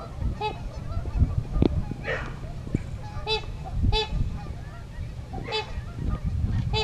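Geese honking: a run of short honks, roughly one a second, over a steady low rumble.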